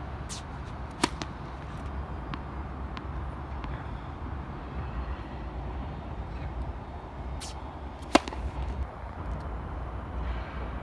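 Tennis racket striking the ball on a serve: a sharp crack about a second in and another about seven seconds later, with a few fainter ticks between. A steady low city rumble sits underneath.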